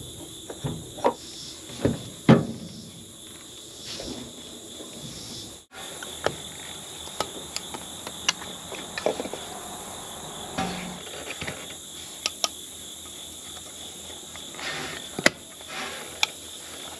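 A steady insect chorus, with scattered clicks and knocks from hands working on the fuel filter and primer pump of a John Deere 9500 combine's diesel engine. The knocks are loudest in the first couple of seconds, and the sound drops out for a moment at an edit about six seconds in.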